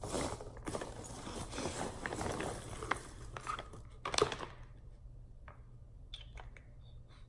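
Packaging being rummaged and handled: packing peanuts and a plastic-packaged camera cleaning kit rustling and crackling in a cardboard box. The crackling is busiest through the first four seconds, loudest around four seconds in, then dies down to scattered small ticks.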